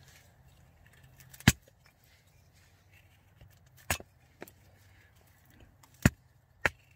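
A knife shaving curls down a wooden stick to make a feather stick: a handful of short, sharp clicks, one every second or so, the loudest about a second and a half in.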